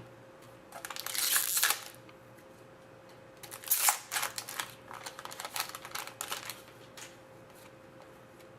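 Trading cards and their foil pack wrapper being handled: quick slides, flicks and crinkles of cardboard and packaging in two spells, a short one about a second in and a longer one through the middle.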